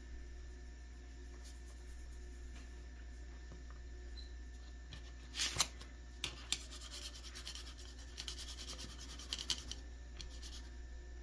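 Faint handling sounds of cold porcelain clay being worked by hand: a few light clicks about five and a half seconds in, then several seconds of soft scratchy rubbing.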